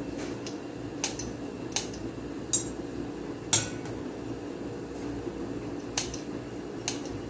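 Metal tongs clinking against a small stainless-steel pot and a ceramic plate while serving boiled eggplant: about seven sharp, irregularly spaced clinks over a steady low hum.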